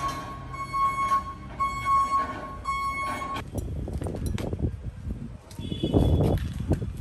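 Forklift warning beeper sounding in long repeated beeps, about one a second, cutting off suddenly about three and a half seconds in. Then a large cardboard TV box being handled and slid into a car boot, with rustling, knocks and a heavy thump about six seconds in.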